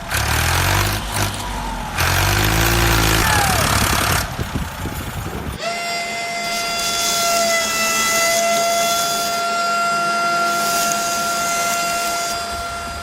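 A vehicle engine sound, rough and low with brief revving glides, that gives way about five and a half seconds in to a long steady high-pitched whine with overtones, held until near the end.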